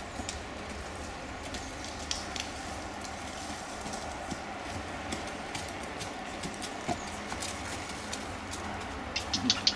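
Ridden horse's hoofbeats on a dirt track, heard as scattered soft clicks over a steady background hiss, with a quick run of sharper clicks near the end.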